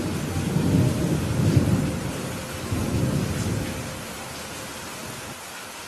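Thunder rumbling over steady rain. The rumble swells and then fades away about four seconds in, while the rain hiss continues evenly.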